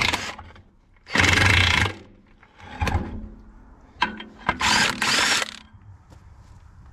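Handheld power tool spinning bolts out of a tractor rear axle hub in short runs of about a second, twice after a first run that ends just at the start. The motor's pitch glides in the last run, and metal clicks and clinks come between the runs.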